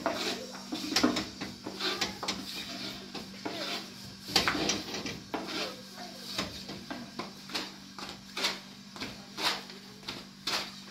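Long thin rolling pin knocking and rolling on a round wooden board as flatbread dough is rolled out thin, about two sharp clacks a second, over a steady low hum.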